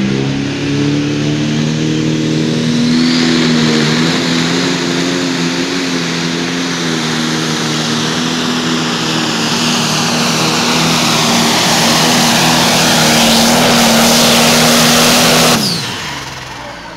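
Diesel engine of a John Deere 5020 pro stock pulling tractor running flat out under load down the track, a loud, steady note with a high whine over it. About sixteen seconds in the engine note drops suddenly as it comes off the throttle.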